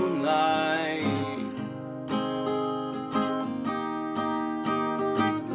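Acoustic guitar strummed in a steady rhythm, a folk-pop chord accompaniment. A held sung note trails off in the first second and a half, leaving the guitar alone.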